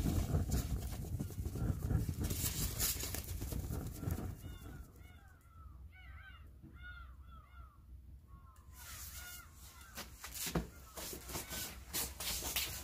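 Birds calling: a run of many short, arching calls over several seconds, amid scattered knocks and rustling.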